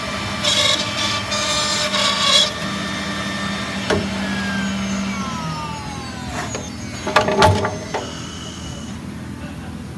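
CNC jamb router spindle cutting the end of a wooden mull post in loud bursts, then running on steadily and winding down with a falling whine about five seconds in. A few sharp clunks follow around seven seconds as the machine releases and moves the post.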